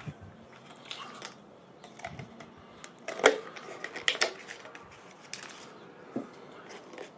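Irregular clicks and knocks of kitchen utensils and containers being handled while a marinade is put together. The sharpest knocks come a little past three seconds and again around four seconds in.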